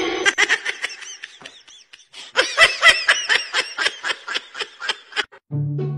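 High-pitched laughter: quick runs of short giggling laughs, several a second, breaking off for about a second, then starting again louder.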